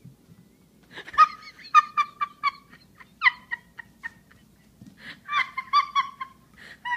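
A person's high-pitched laughter: runs of quick shrill giggles, about four a second, in three bursts.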